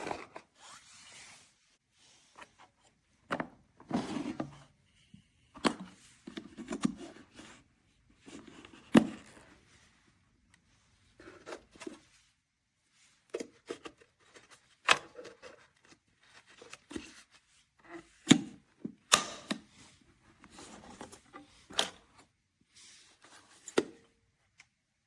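Irregular handling noises: sharp clicks and knocks every second or two, with brief rustling and scraping between them.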